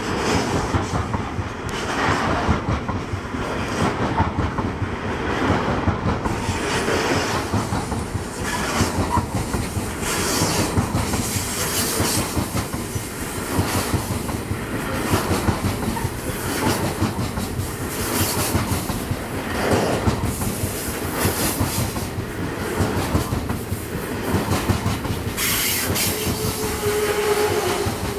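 Loaded coal train's hopper wagons rolling past close by: a steady heavy rumble with the clickety-clack of wheels over rail joints. From about six seconds in, short high-pitched wheel squeals come and go.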